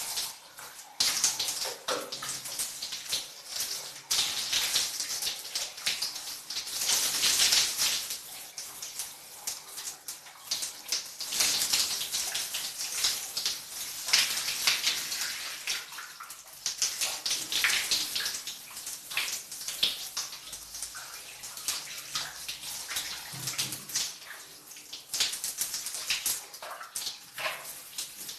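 Shower water splashing in a bathroom as someone washes under it, the spray swelling and dropping every few seconds as the body moves through the stream, with scattered spattering splashes.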